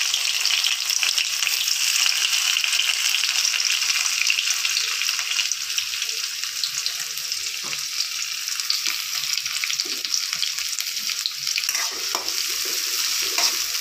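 Chopped shallots frying in hot sesame oil in a metal kadai, a steady dense sizzle. In the later part a spatula stirs them, with light scrapes and knocks against the pan.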